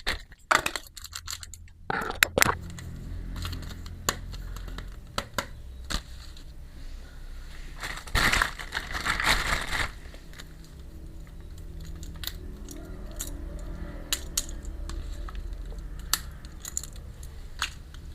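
Small plastic miniature toy kitchen pieces clicking and tapping as they are handled and set down, with a stretch of rustling about eight to ten seconds in.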